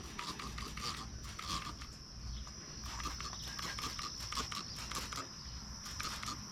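Irregular scrubbing and scraping with many small clicks: the front of a Jeep Gladiator's radiator being cleaned of bug remains, with a faint steady high-pitched tone underneath.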